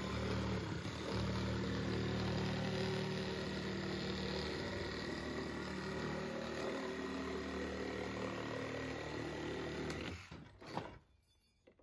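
Handheld power saw cutting through the wooden hull of an old sailing dinghy, its motor running steadily under load. It stops about ten seconds in, followed by a single short knock.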